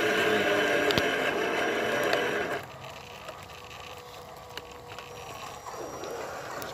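Electric motors and gear drives of 1/10-scale RC crawler trucks whining as they drive, loud for about two and a half seconds, then dropping suddenly to a faint steady hum.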